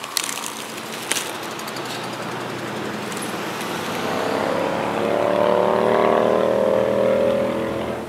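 A passing motor vehicle: its engine hum swells from about four seconds in, peaks, and fades near the end. Two sharp clicks come in the first second.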